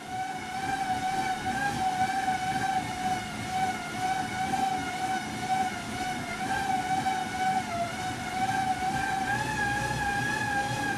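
Road bike tyres spinning on bicycle rollers: a steady whine that wavers slightly over a rumble, rising a little in pitch about eight seconds in as the speed picks up.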